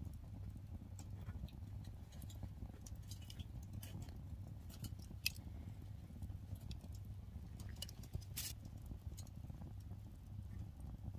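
Light, irregular clicks and crackles from camp cooking, with a sharper click about five seconds in and a brief hiss a little after eight seconds, over a low steady rumble.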